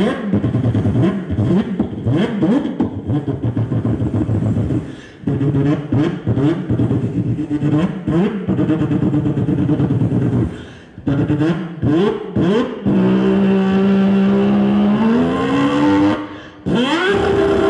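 A man vocally imitating a car engine into a handheld microphone, heard through a PA: rough, buzzy revving with pitch swoops, broken by short pauses about five and eleven seconds in. From about thirteen seconds he holds a steady engine note that climbs in pitch near fifteen seconds, then cuts off briefly before more rising revs.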